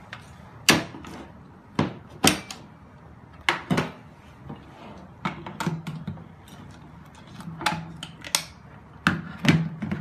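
A plastic anti-theft security tag and a metal formula tin clicking and knocking as the tin is fitted into the tag and handled on a wooden tabletop: about ten irregular sharp clicks and knocks, some with a dull thud.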